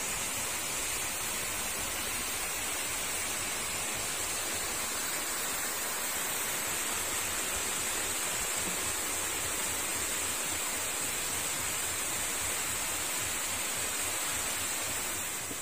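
Waterfall: water rushing steadily.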